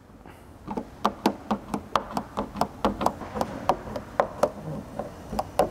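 Small hard squeegee making quick, repeated clicks and taps against tint film on a plastic taillight, about four or five a second, as it is stroked across to push slip solution out from under the film.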